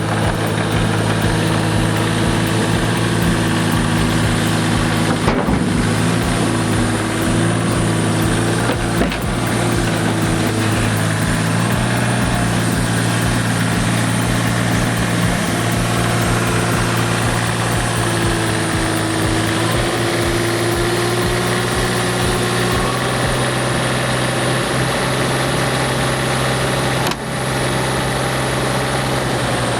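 Heavy diesel engine of construction machinery running steadily, its pitch shifting slightly now and then, with a short break about 27 seconds in.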